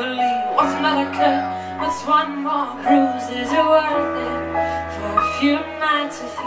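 A woman singing live, accompanied by her own electric keyboard playing sustained bass notes and chords, with the bass note changing every second or two.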